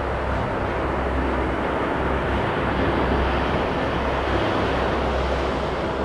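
Small surf breaking and washing up the sand at the water's edge, a steady rush of waves, with wind noise on the microphone underneath.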